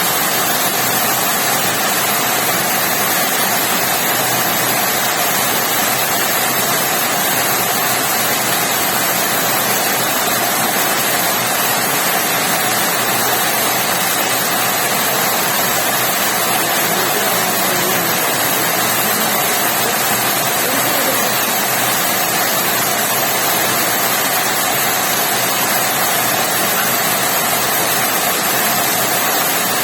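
Rain falling steadily, an even unbroken hiss of water.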